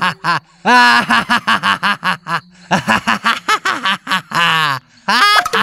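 A cartoon character's voice laughing hysterically in long runs of quick, repeated ha-ha pulses, broken by two short pauses.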